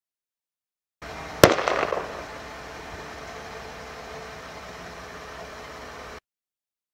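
A single loud bang about a second and a half in, with an echo that dies away over about half a second, followed by faint steady outdoor hiss.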